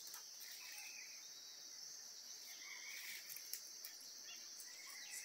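Faint, steady high-pitched trill of insects such as crickets, with a few faint clicks about two thirds of the way in.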